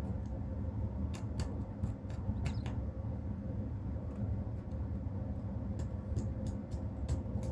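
Steady low hum carrying a faint constant tone, with a few scattered short clicks and faint squeaks.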